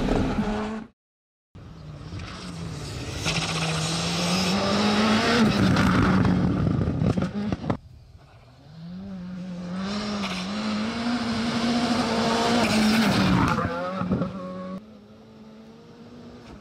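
Skoda Fabia R5 rally car's turbocharged four-cylinder engine at full throttle on a gravel stage, its pitch rising and falling with throttle and gear changes. After a brief silence at the start it runs loud until a cut; then the car is heard again, out of sight, revving up and down as it comes along the stage, before it drops back to quieter background near the end.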